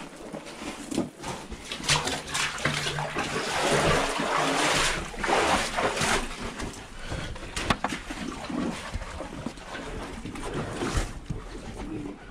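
Footsteps and splashing of people walking through a wet mine tunnel, loudest from about two to six seconds in.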